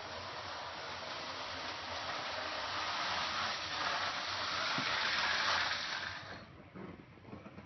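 Electric toy train running on its track, a steady hissing whir that grows louder as it comes by and drops away about six and a half seconds in.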